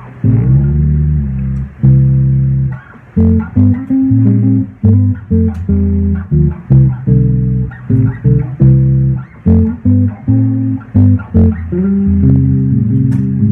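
Bass guitar playing a riff of short plucked notes, with a bend in pitch just after the start and longer held notes near the end.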